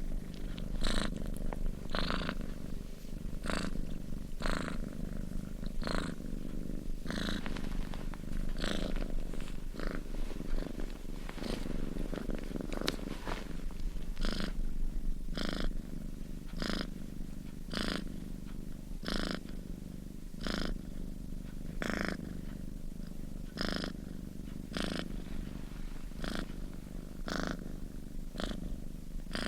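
Sleeping domestic cat snoring: a steady low rumble with regular raspy breath noises, roughly one to two a second.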